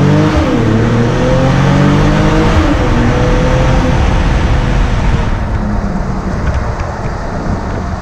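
Mercedes-AMG GLE 53's 3.0-litre inline-six engine and exhaust under hard acceleration. The note climbs, dips briefly about half a second in at a quick upshift, and climbs again. After about five seconds the throttle is eased off and it settles into a quieter cruising drone.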